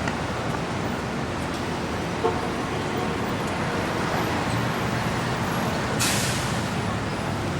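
Manhattan street traffic: a steady wash of engine rumble and tyre noise, with a single sharp knock about two seconds in and a sudden hiss near the end that fades away.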